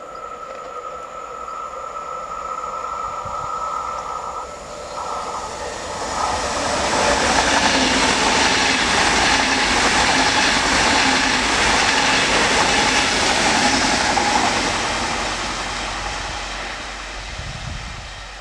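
PKP Intercity ED250 Pendolino electric high-speed train passing at speed. A steady high hum comes first as it nears, then a loud rush of wheels on rail and air that swells about six seconds in, holds for several seconds and fades as the train goes away.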